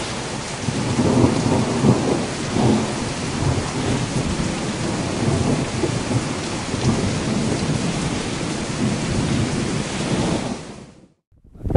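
Thunderstorm sound: steady rain with low rolling rumbles of thunder, fading out about a second before the end.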